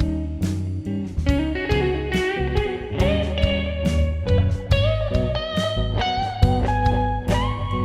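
Background music: bluesy electric guitar with bending notes over bass and drums.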